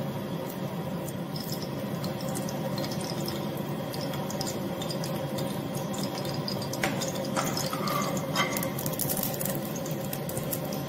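Steady low hiss and hum from a gas burner heating oil in an aluminium pan, with a few faint light ticks in the second half.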